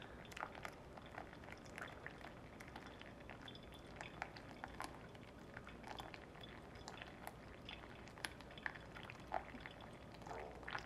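Thin stream of water from a gooseneck kettle poured high and slow onto a coffee bed in a V60 dripper: a faint steady trickle with scattered small crackles.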